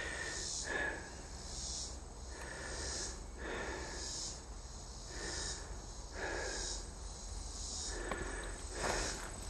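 Footsteps crunching on a gravel trail at a steady walking pace, about one step a second.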